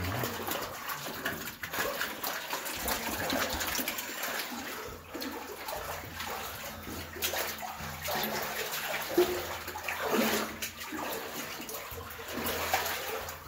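Water sloshing and splashing around boots wading through a flooded tunnel, in an uneven run of swells and splashes.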